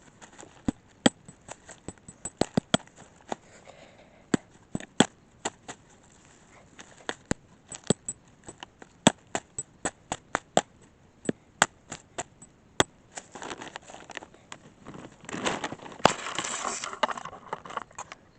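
Irregular sharp clicks and snaps, several a second, with a louder stretch of rustling and crunching about thirteen to seventeen seconds in.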